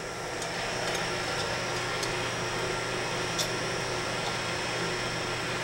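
Steady mechanical hum and hiss of a running machine, with one faint small click about three and a half seconds in.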